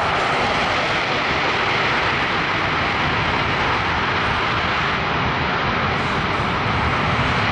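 C-17 Globemaster's four Pratt & Whitney F117 turbofan engines making a loud, steady jet noise during its short-field landing.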